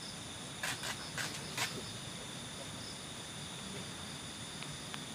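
Steady high chirring of a night insect chorus, crickets among them. A few brief soft noises come about a second in.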